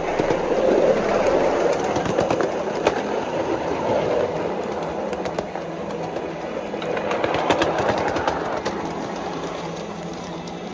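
3.5-inch gauge LBSC Juliet live steam locomotive and its riding car running on the miniature track, a steady mechanical running noise with many quick clicks of wheels on the rails, growing quieter near the end.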